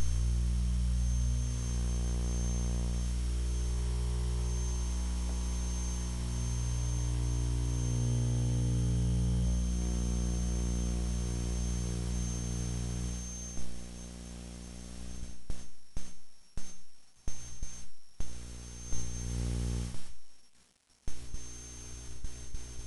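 A low electronic drone: a stack of held buzzing tones that shift in pitch now and then. About two-thirds of the way through it turns choppy, cutting in and out repeatedly, with one short near-silent gap near the end.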